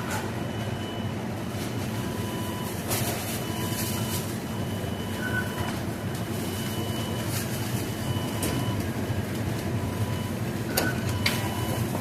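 Fast-food restaurant kitchen ambience: a steady rumble of ventilation and equipment, with electronic fryer and timer beeps repeating at two pitches, a lower and a higher one, and a few clatters near the end.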